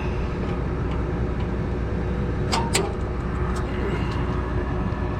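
An engine running steadily in the background, with two sharp clicks about two and a half seconds in.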